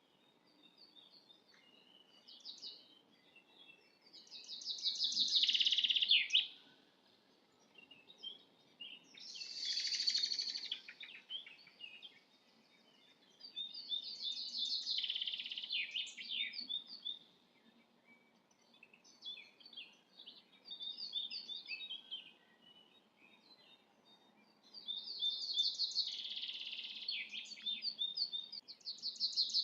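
Small songbirds singing: bursts of rapid, high chirping song about two seconds long recur every few seconds, with scattered single chirps in between.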